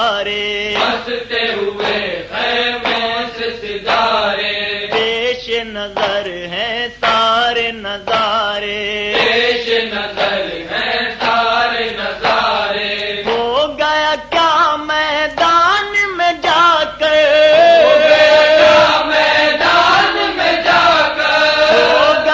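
Voices chanting a noha, a mournful Shia lament, in long held and sliding notes.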